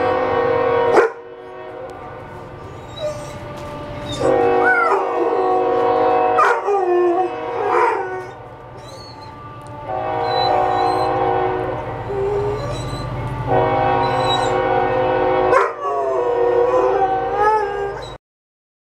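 A train horn sounds in several long blasts, with a low rumble underneath. A dog howls along over it, its wavering howls sliding up and down against the horn's steady chord. Everything cuts off suddenly near the end.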